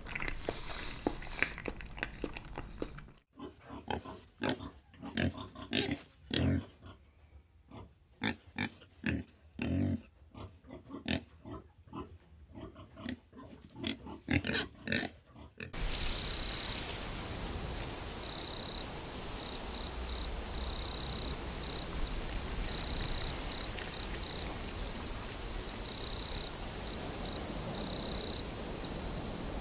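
Short, irregular animal noises, one after another for about twelve seconds, then an abrupt change to a steady, high insect trill over a hiss that drops out briefly now and then.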